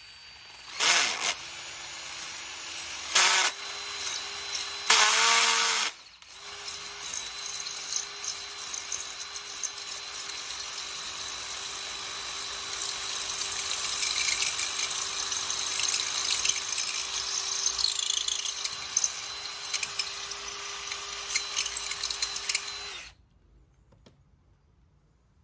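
Electric drill running with its bit cutting into aluminum to enlarge a hole: a few short bursts at first, then a steady run of about seventeen seconds that stops suddenly near the end.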